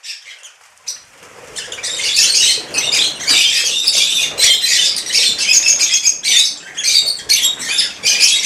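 A flock of peach-faced lovebirds chattering with dense, shrill, high-pitched calls that start about a second and a half in and carry on; a flutter of wings near the start as the birds leave the feeding tray.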